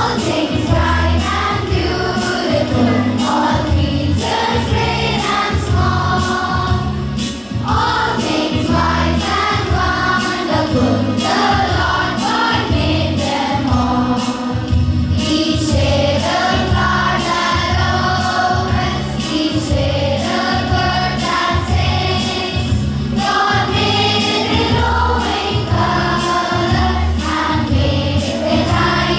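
A group of children singing a song together over a musical accompaniment with a steady beat.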